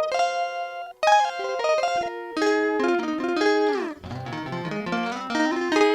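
Lava Me Air acoustic guitar played plugged in: picked notes and chords, with a held chord cut off about a second in and a downward slide near the middle followed by a rising run of low notes.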